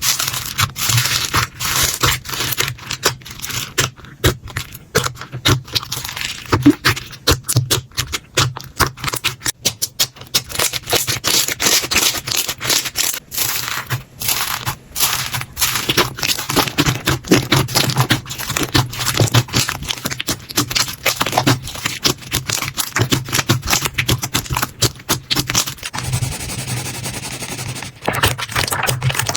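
Slime being squeezed, poked and stretched by hand, making a dense, irregular run of sticky clicks, pops and crackles, with a quieter stretch a few seconds before the end.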